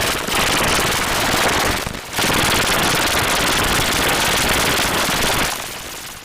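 Loud, harsh digital crackle and static, a rapid machine-gun-like rattle with a short break about two seconds in, fading out near the end: a heavily distorted audio effect.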